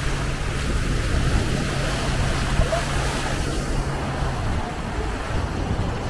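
Small sea waves washing onto a sand beach with wind on the microphone, over a steady low drone from a watercraft engine offshore that stops about four and a half seconds in.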